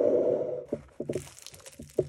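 Crisp baked crust of a filled Tuscan schiacciata (focaccia) crunching and crackling as two hands tear it apart, in a run of small irregular crackles that starts under a second in. It is preceded by a short steady rush of noise.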